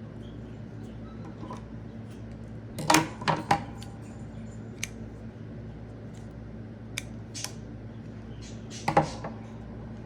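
Sharp clicks and light taps of small craft items being handled on a tabletop, in a cluster about three seconds in and again near the end, with a few single ticks between, over a steady low hum.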